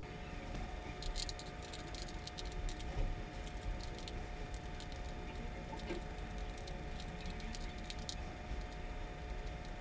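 Iron filings rattling and skittering on a sheet of paper as the paper is tapped, a scatter of many small light clicks, as the filings settle into the field lines of a bar magnet beneath. A steady faint hum runs underneath.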